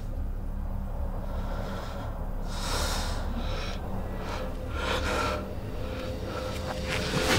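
Several loud, airy breaths or exhalations, a little over two and a half seconds in, again around four seconds and around five seconds, over a low steady drone.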